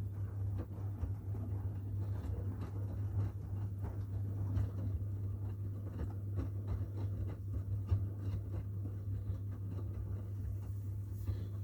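Washing machines running a wash cycle: a steady low hum with irregular light knocks and clicks from the tumbling drum.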